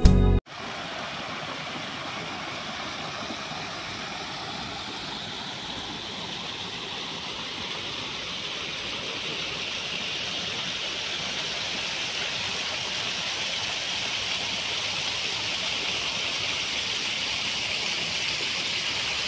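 Steady rush of water flowing along a shallow stone-lined garden stream, growing slightly louder.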